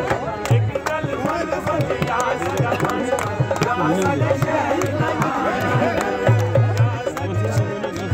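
Live folk music: a two-headed barrel drum (dhol) beating a quick, steady rhythm under a harmonium melody and a singing voice.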